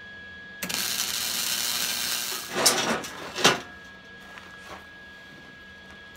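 Wire-feed (MIG) welder arc hissing and crackling steadily for about two seconds while a bead is run on steel, then cutting off, followed by two sharp metal clanks about a second apart.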